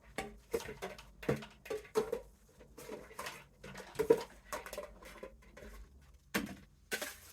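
Dollar-store bowls being picked up and handled: a run of irregular knocks and clatters, the sharpest about four seconds in and again near the end.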